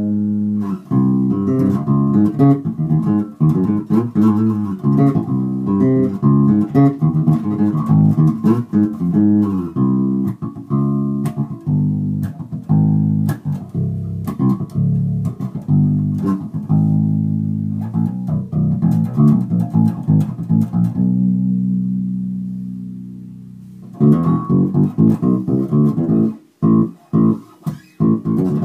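Carvin SB5000 five-string electric bass played fingerstyle, in runs of quick plucked notes. About three-quarters through, one note is held and fades away, then quick, choppy notes start up again.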